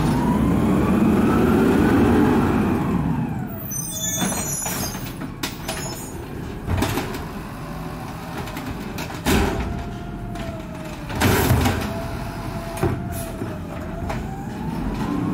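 Automated side-loader garbage truck working a street: the engine runs loud under a whine that rises and then falls as the hydraulics work, then a short hiss about four seconds in. After that the truck keeps running farther off with a steady whine, and several sharp knocks sound. Near the end the whine rises again.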